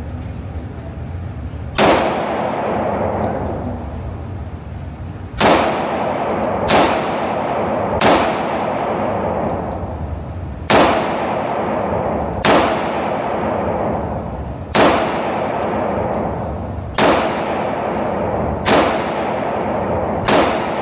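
Gun fired ten times in slow, deliberate single shots, one to three seconds apart, each crack followed by a long ringing tail as it echoes away.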